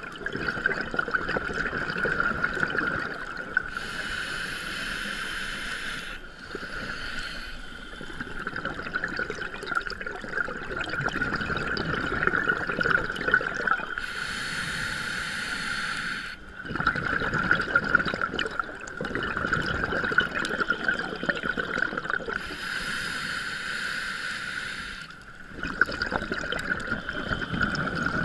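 Underwater scuba breathing through a regulator, heard through the camera housing: three long rushing bubble bursts about nine seconds apart, over a steady bubbling rumble and a constant high whine.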